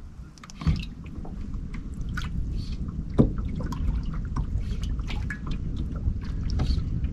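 Water dripping and lapping around a small fishing boat, over a steady low rumble, with two sharp knocks, one about half a second in and one about three seconds in.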